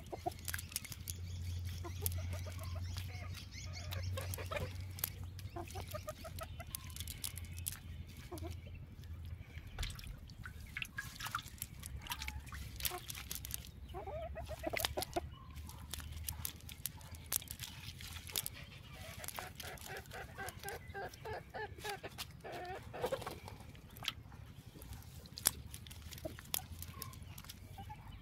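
Chickens clucking in short, repeated calls, with scattered clicks and rustles from a cast net being picked over by hand.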